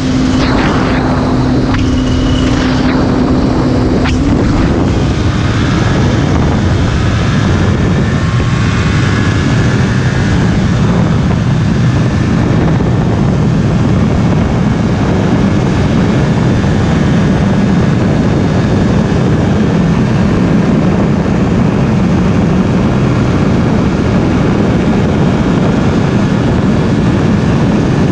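Kawasaki Ninja 250's parallel-twin engine running at steady highway speed, heard from the rider's seat under heavy wind rush on the microphone. A steady engine drone stands out for the first four seconds, then gives way to an even rush of wind over a low engine rumble.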